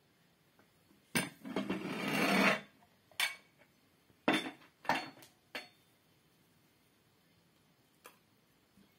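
Dishes being handled: a knock followed by about a second of scraping, then four or five short, separate knocks and clinks, and one faint tick near the end.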